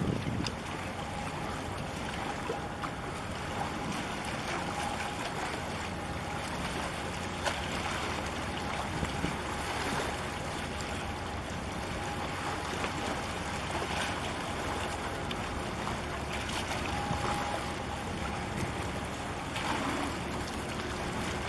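Steady rushing of wind on the microphone and water at the shore, with a faint steady hum underneath and a few light crackles.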